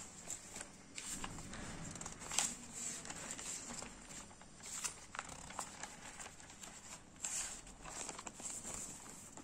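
Pages of a paper notebook being leafed through by hand: a run of faint paper rustles and flicks, with a few louder page turns every two to three seconds.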